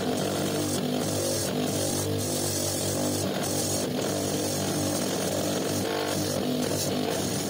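Bench grinder running with a motorcycle crankshaft flywheel half pressed against its spinning wheel, grinding rust off the steel, with a steady motor hum and a hiss that briefly drops out again and again as the part is moved. Music plays along with it.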